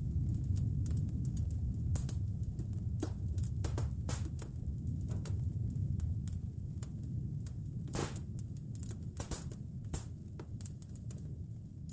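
Wood fire crackling in a fireplace: irregular sharp pops and snaps, a few louder ones, over a steady low rumble.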